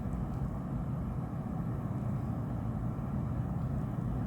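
Steady blowing hum of a hot-air rework tool running, used to soften phone adhesive.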